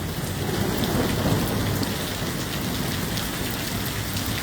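Thunderstorm rain falling steadily, with a low rumble of thunder swelling about half a second in and fading over the next couple of seconds.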